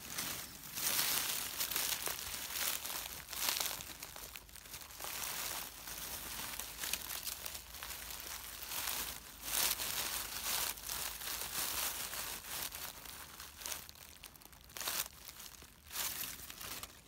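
Dry fallen leaves crackling and rustling in irregular bursts as a hand brushes through them close to the microphone.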